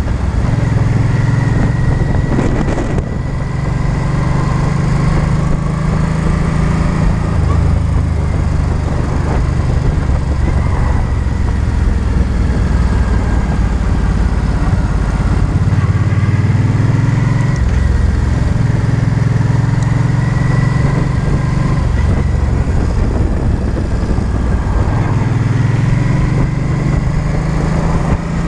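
Cruiser motorcycle's engine running on the move, its note rising and falling in steps with throttle and gear changes, over steady wind and road noise.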